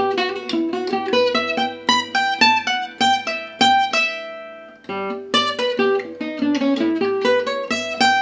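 Acoustic guitar picking a fast single-note gypsy jazz lick, note by note in quick succession, in two phrases with a brief gap about five seconds in.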